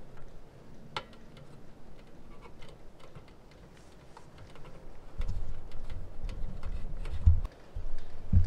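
Faint scattered clicks and light taps from hands working on a metal vent cap and its mastic pad, one sharper click about a second in. From about five seconds in a low rumble comes up, with two short thumps near the end.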